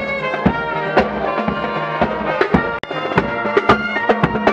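Naval marching band playing: brass over snare and bass drums, with a steady drum beat. The sound drops out for an instant about three seconds in.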